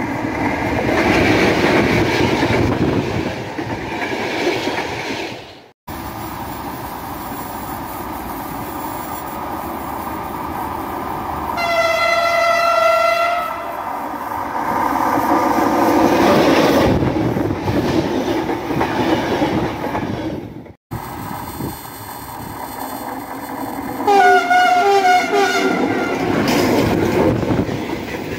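Passing trains in several short cuts: an electric locomotive approaching with a steady rumble of wheels on the rails. A train horn sounds one long steady blast about halfway through. A second, two-note horn blast comes a few seconds before the end, as a line of freight wagons rolls past close by with clattering wheels.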